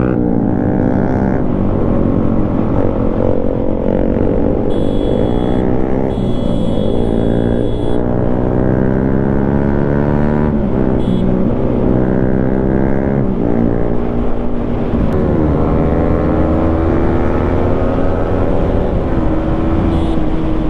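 Yamaha MT-15's single-cylinder engine through an aftermarket Akrapovic exhaust, accelerating up through the gears: the pitch climbs and then drops sharply at each shift, several times, before holding steady near the end as the bike cruises.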